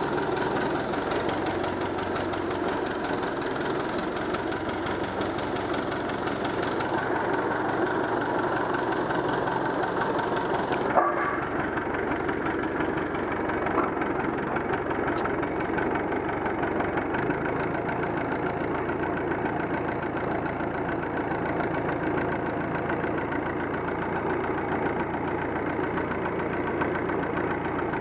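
Ursus tractor engine running steadily as the tractor is driven along, with one short sharp knock about eleven seconds in.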